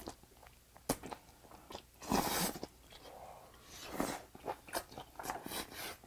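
Chewing and biting on tender, straw-fire-grilled octopus, with wet mouth clicks and louder bursts about two seconds and four seconds in.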